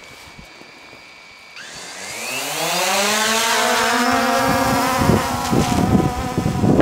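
White quadcopter drone's electric motors and propellers idling with a faint whine, then spooling up about one and a half seconds in: a rising multi-tone whine that levels off as the drone lifts off and climbs. Wind buffets the microphone in the last couple of seconds.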